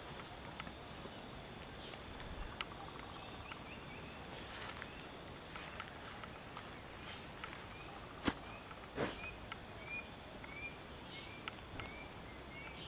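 Steady high-pitched insect chorus, cricket-like, with a run of short chirps in the second half. Two sharp snaps come about eight and nine seconds in.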